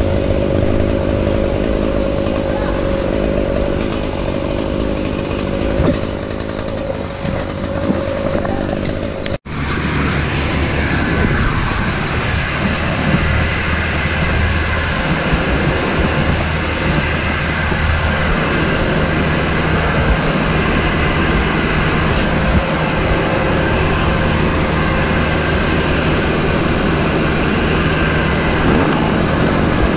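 Engines running steadily at work pitch, with a brief sudden dropout about nine seconds in before the same running sound resumes.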